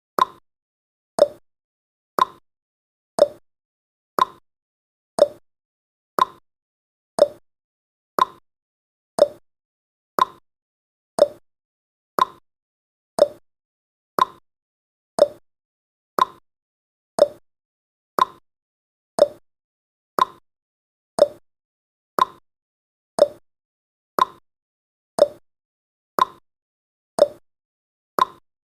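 Countdown timer's clock-tick sound effect, one short sharp tick each second, steady and even.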